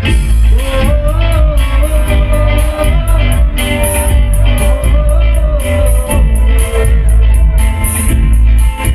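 Live band music: a male singer sings a held, wavering melody into a microphone over electric guitar, bass and a steady drum beat, all amplified through a PA.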